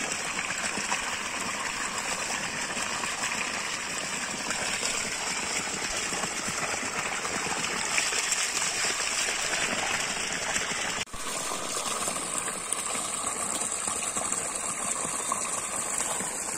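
Water gushing from a pipe outlet and splashing onto wet ground and over goat intestines held in the flow. The sound cuts out for an instant about eleven seconds in, then the gushing resumes.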